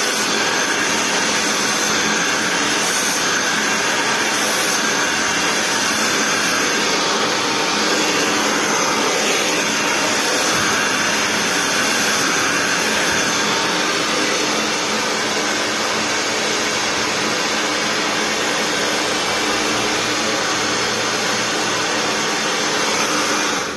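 Handheld hair dryer running steadily, blowing air through hair lifted on a round brush during a blow-dry; it cuts off right at the end.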